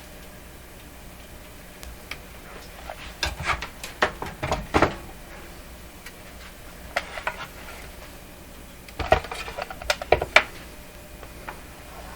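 Clusters of sharp clicks and light clatter in three groups a few seconds apart, from the oscilloscope's front-panel switches and knobs being worked as it is tried out after a repair.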